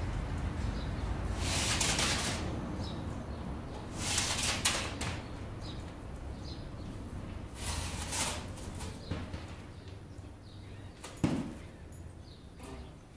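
Slingshot rifle with a spinning reel being drawn and shot at a foam target: three swishing rushes of about a second each with sharp snaps among them, and one louder knock near the end.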